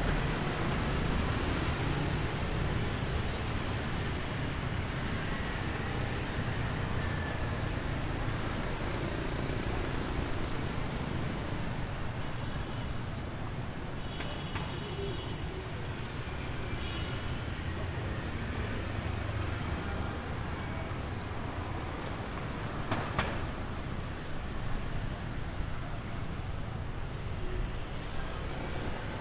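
Steady city street traffic: motorbikes and cars passing on the road in an even rumble, with a sharp click about two-thirds through.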